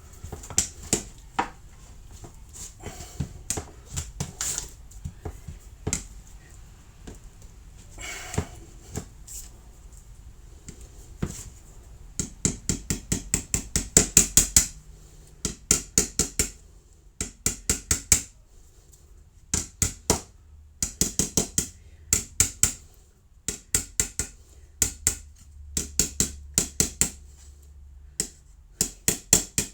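Light metal tapping on a student Jupiter trumpet's brass tubing while dents are worked out. A few scattered knocks come first, then from about twelve seconds in there are repeated runs of quick, sharp taps, several a second.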